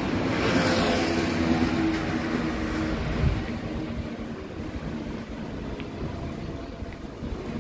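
A motor vehicle passing close by, its engine and tyre noise loudest in the first couple of seconds and then fading away.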